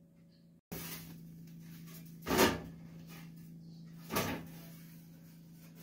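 Crust of a freshly baked baguette crunching as it is broken and handled by hand: two brief crunches about two seconds apart, over a steady low hum.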